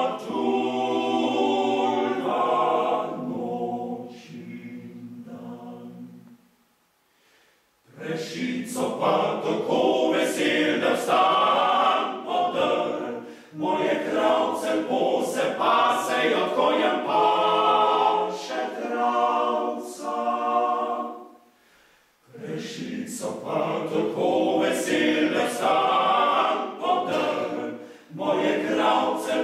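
Male vocal octet singing a cappella. The voices soften about four seconds in and fall silent briefly around seven seconds before the next phrase starts; a second short pause between phrases comes about twenty-two seconds in.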